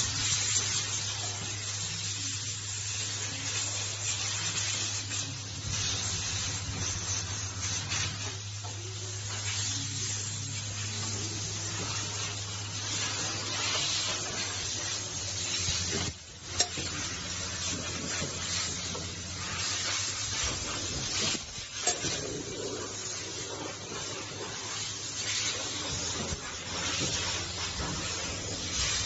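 Breathing-valve ultrasonic welding machine running: a steady hiss over a constant low hum, with two sharp clicks, one about sixteen seconds in and another about twenty-two seconds in.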